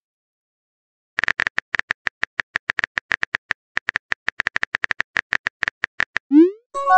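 Phone keyboard key clicks from a texting-story app: a fast run of short taps, about six a second, starting about a second in. Near the end comes a quick rising swoop followed by a short chime as the message is sent.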